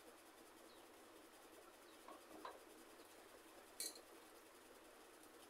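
Near silence, with faint sounds of rice being mixed by hand on a steel plate and one short sharp click a little before four seconds in.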